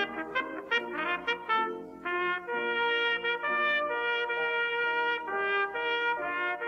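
Instrumental background music: quick short notes for about the first two seconds, then slower, longer held notes.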